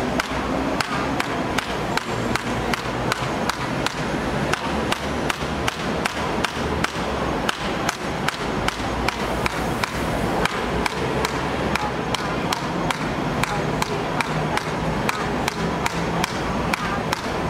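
A shoe repeatedly slapping down on a paper effigy laid on a brick, the steady beating of a villain-hitting curse ritual, about three strikes a second, over a steady low traffic rumble.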